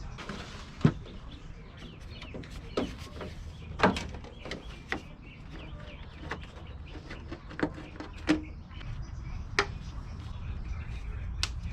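Irregular light clicks and knocks, about a dozen, over a low steady hum; the sharpest come about a second in and about four seconds in.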